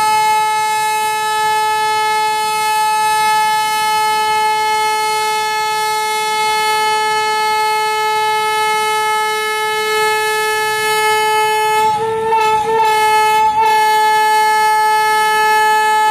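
Train horn sounding one long continuous blast at a single steady pitch, wavering and briefly breaking about twelve seconds in before holding steady again.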